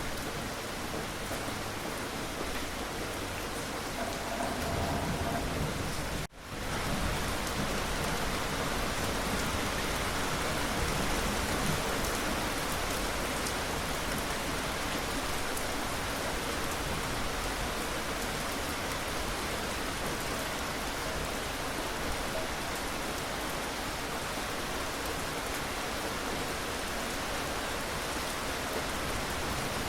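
Steady rain falling on a surface, an even hiss of drops with no rhythm. The sound drops out for an instant about six seconds in, then carries on as before.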